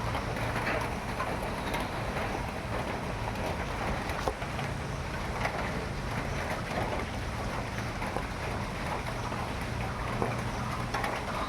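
Steady rain falling, with scattered drop ticks and a low steady hum underneath.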